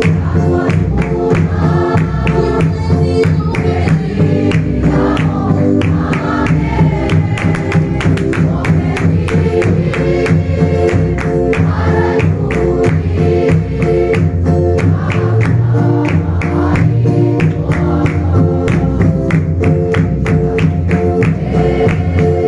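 Congregation singing a hymn together in unison, backed by an electric keyboard and a steady beat on a large barrel drum.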